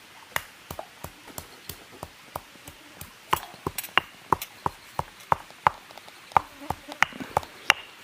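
Heavy stone pestle pounding in a stone mortar, crushing dry whole spices and dried red chillies: steady sharp knocks about three a second, growing louder about three seconds in.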